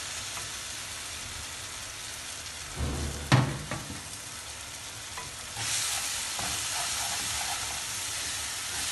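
Tomato, onion and spice mixture sizzling in a frying pan as a wooden spatula stirs it, with one sharp knock about a third of the way in. The sizzle gets louder a little past halfway.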